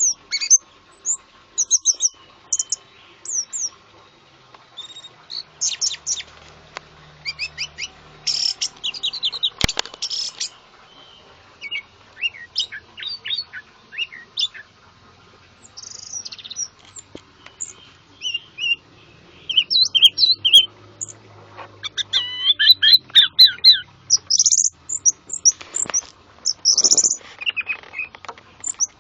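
Songbirds singing in quick bursts of high chirps and trills, with a sharp click about ten seconds in.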